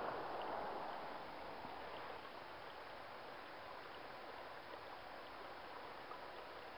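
Creek water flowing, a faint steady rush that eases off a little over the first couple of seconds and then holds even.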